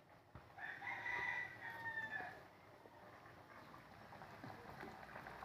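Faint rooster crowing: one drawn-out call, starting just before a second in and lasting about a second and a half, falling off at its end.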